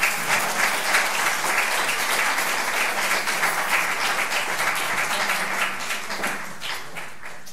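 Audience applauding, a dense sustained clapping that thins out and stops near the end.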